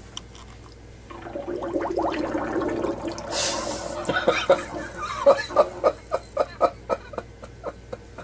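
An animal's long, wet, sputtering fart. It is followed by a run of short pulses, about three a second, that die away.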